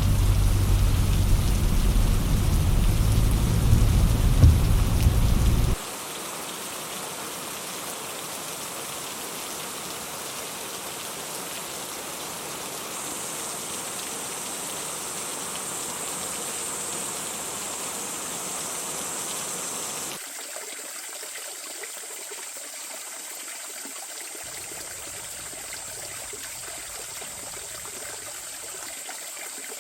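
Outdoor forest ambience in several cuts. A loud low rumble plays for the first six seconds, then a steady rain-like hiss. A high, steady insect trill joins about thirteen seconds in, and the background turns quieter and thinner near twenty seconds.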